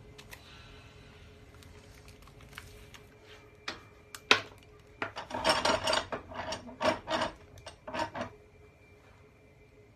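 A sharp metal click about four seconds in, then three seconds of clinking, rattling and scraping as metal tool parts are handled at a bench vise.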